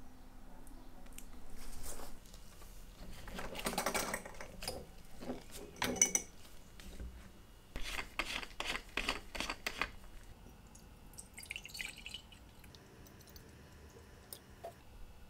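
A plastic screw cap twisted on a bottle of nickel electrolyte, in several bursts of crackly clicks, then the liquid poured into a glass jar as a faint trickle.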